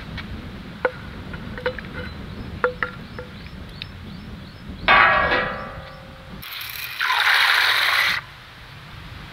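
Light metal clinks of steel utensils over a wood-fire stove. About five seconds in there is a loud splash into the pan of water, with a short ringing of the steel bowl. Near the end comes a second-long rush of split chickpea lentils (chana dal) poured into a steel bowl of water.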